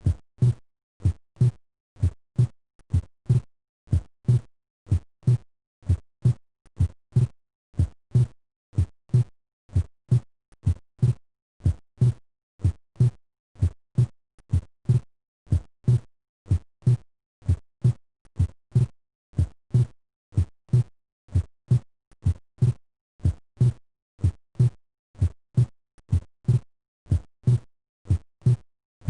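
Recorded heart sounds as heard on auscultation: a steady lub-dub rhythm of paired low thumps, about one heartbeat a second.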